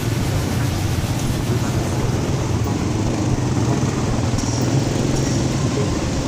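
Steady low engine rumble of a moving vehicle, with a constant rushing noise over it.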